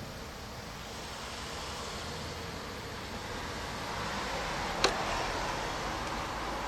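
Steady hiss of heavy rain during a thunderstorm, swelling a little about four seconds in, with a single sharp click near the five-second mark.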